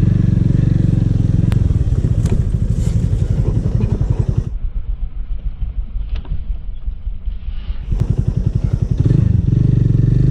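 Motorcycle engine running as the bike works over a rough dirt track. The engine eases off for a few seconds in the middle, then picks up again. There are a few sharp clicks.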